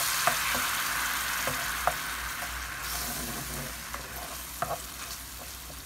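Shrimp sizzling in butter and cooking cream in a frying pan, stirred with a wooden spoon that gives a few light clicks against the pan. The sizzle slowly fades.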